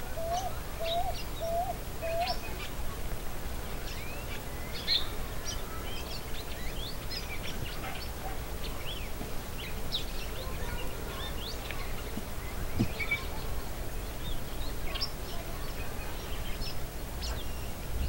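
A flock of red-cowled cardinals and doves feeding on the ground, with many short chirps and calls scattered throughout. In the first two seconds a lower note repeats about twice a second.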